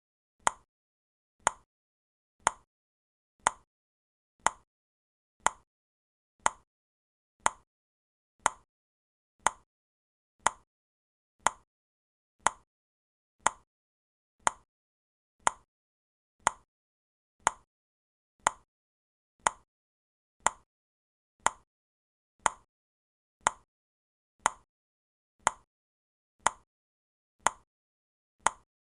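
Countdown timer's clock ticking, one short, sharp tick every second at an even pace.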